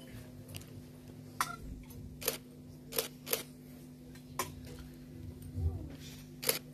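A metal holy-water sprinkler (aspergillum) clinking against its metal bowl as it is dipped and shaken, a handful of sharp, separate clinks at uneven intervals, over a steady low hum.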